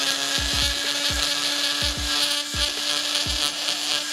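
Die grinder running at a steady high whine, its small burr cutting the aluminium of a Honda CB500 cylinder head to port it behind the valve guide, with a hiss of cutting and irregular low thuds.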